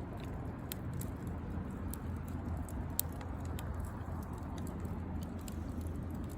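Wood fire crackling, with scattered sharp pops and one louder snap about three seconds in, over a steady low background rumble.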